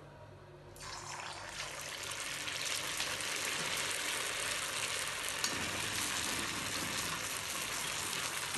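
Chicken spring roll deep-frying in hot oil in a cast iron pan. The sizzle starts suddenly about a second in, grows louder over the next two seconds, then holds as a steady hiss.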